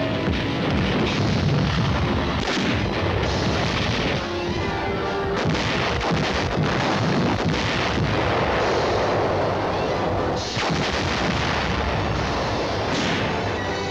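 Battle sound effects of artillery fire, with repeated booms of guns and shell bursts over continuous rumbling, mixed with background music.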